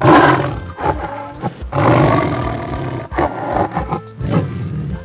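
A big cat's roar laid over light background music: two long roars in the first three seconds, then two shorter ones.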